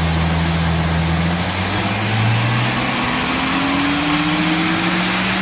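A car engine running over a loud rushing noise, its low hum rising slowly in pitch as it speeds up.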